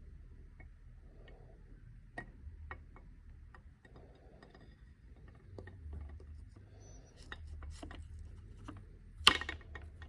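Irregular light mechanical clicks and taps over a low hum, with one sharp, much louder clack near the end.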